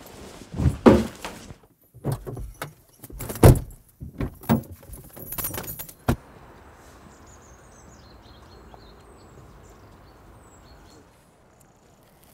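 Handling noise of a backpack being shoved onto a car's back seat: rustling and several loud knocks and clatters, ending about six seconds in with the sharp click of a car door shutting. After that there is quiet outdoor background with a few faint, short bird chirps.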